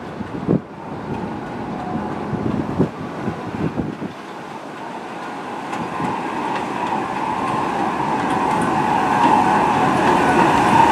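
Bombardier R62A subway train approaching on the elevated tracks. Its rumble and a whining tone grow steadily louder over the second half as it draws near, after a few low thumps in the first seconds.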